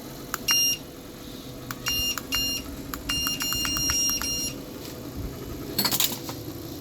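Treadmill beeping as its speed buttons are pressed: short high beeps, some single and then a quick run of several, over the steady hum of the treadmill motor running. A brief rattle near the end.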